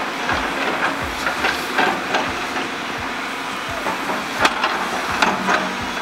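JCB tracked excavator's diesel engine running as the boom moves and lowers the bucket, with a steady hiss and a string of sharp clanks and knocks from the bucket and arm, the loudest a little past the middle.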